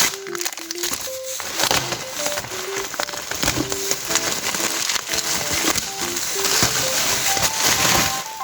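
Packaging crinkling and crackling as it is handled, over light background music with a melody of short, stepping notes.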